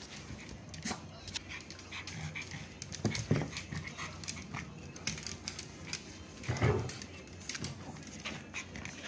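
Boston terriers panting close by, with many quick clicks of their claws on a tile floor and two louder short sounds, one near the middle and one about two-thirds of the way through.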